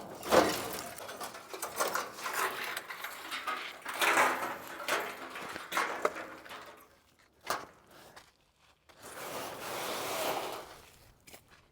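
Scraping, rattling and rasping of wiring and metal as copper is ripped out of a burnt-out car, in several bouts with a sharp knock a little past halfway and a longer rasp near the end.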